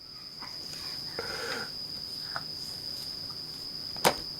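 Quiet pause with a faint, steady high-pitched whine throughout, a brief soft baby vocalization a little over a second in, and one sharp click near the end.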